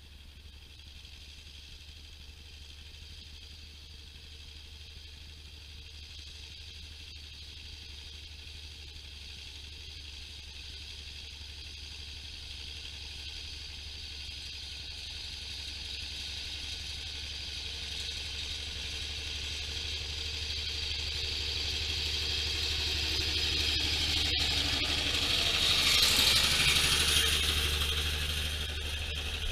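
John Deere 6920's six-cylinder diesel engine under load pulling a plough, getting steadily louder as the tractor approaches. It is loudest about 26 seconds in, where the plough's rattle and clatter join it as the plough passes close by, then it eases off.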